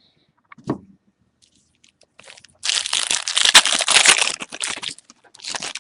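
Foil trading-card pack wrapper being torn open and crinkled, a dense crackle lasting about two seconds, then a shorter crinkle near the end.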